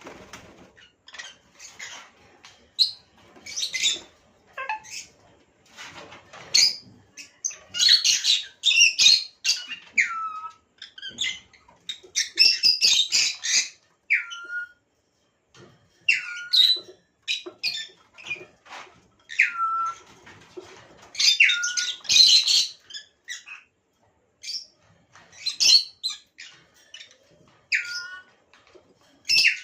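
Lovebirds chirping and squawking in a busy run of short, sharp high calls, several of them sliding quickly down in pitch at the end.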